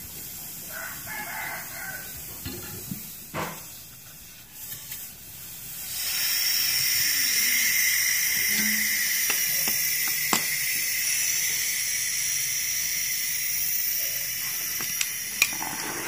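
Refrigerant gas hissing steadily out of a refrigerator's cut refrigerant line, starting suddenly about six seconds in. The system is letting go of the small charge left in it. A few faint clicks of pliers on the pipework come before it.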